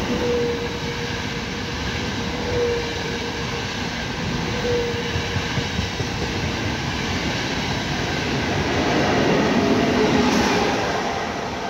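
A Trenitalia Intercity train running along the platform, its coaches' wheels clattering over the rails with brief faint squeals. The sound swells near the end as the electric locomotive goes by, then eases off.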